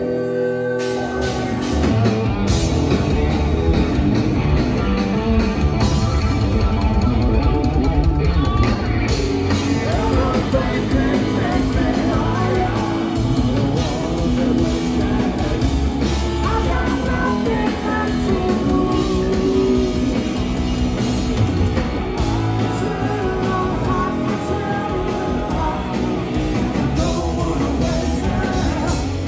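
Live rock band playing: electric guitar, electric bass and drum kit with a male lead vocal. A held chord opens, and the full band comes in about a second in.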